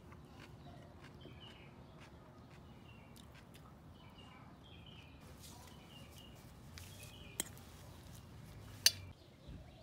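Faint chirping of small birds in short groups of quick calls, with two sharp clicks near the end, the second one loud.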